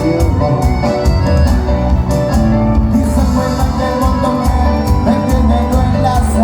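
Live band playing Latin dance music, with a heavy bass and a steady percussion beat under sustained melodic lines.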